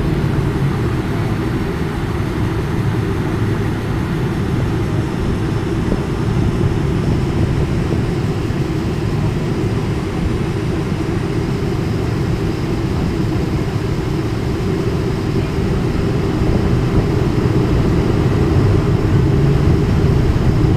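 Steady low rumble inside the cabin of a Boeing 747-400 on the ground, its four engines running at low power; the rumble grows slightly louder near the end.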